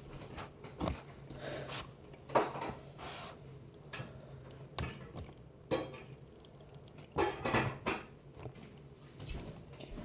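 Irregular knocks and clinks of containers and utensils being handled, about a dozen in ten seconds with a cluster near the end, over a steady low hum.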